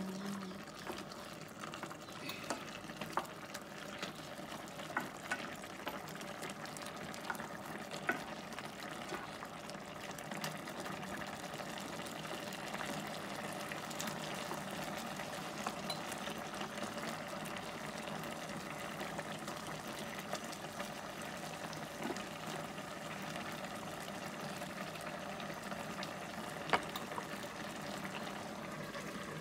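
Mutton curry simmering and bubbling steadily in a pot, with a few light knocks of a wooden spatula against the pot as it is stirred.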